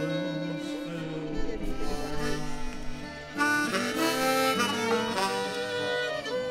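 Instrumental break in a folk song: a harmonica plays the melody over fiddles and strummed acoustic guitar. It swells louder about three and a half seconds in.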